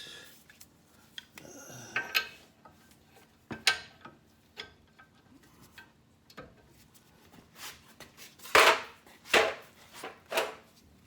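Hand tools knocking, clicking and scraping against metal on a car's front suspension as a bolt is worked loose, with a run of four louder scraping strokes near the end.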